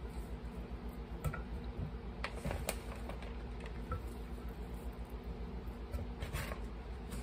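Hands pressing soft, buttery biscuit dough pieces with cheese and bacon into a metal Bundt pan: soft squishing with scattered light taps and clicks against the pan, over a steady low hum.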